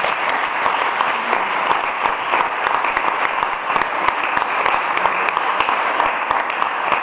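Audience applauding: many hands clapping in a steady, continuous stream.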